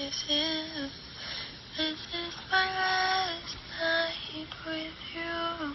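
A girl singing unaccompanied into a phone, holding notes in short sung phrases with brief breaks between them.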